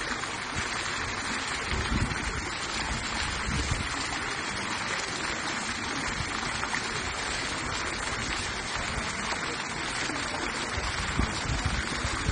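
Courtyard pool fountain splashing: water jets spraying up and falling back into the pool in a steady rush.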